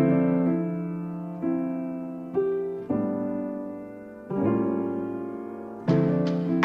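Background piano music: slow chords, each struck and left to fade, with percussion strokes coming in near the end.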